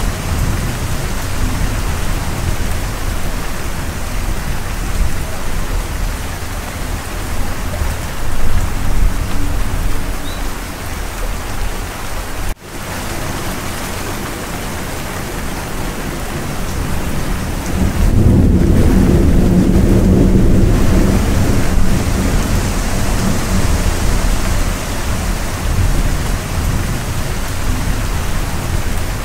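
Steady heavy rain in a thunderstorm, with a low rumble of thunder swelling up about two-thirds of the way through. The sound cuts out for an instant a little before halfway.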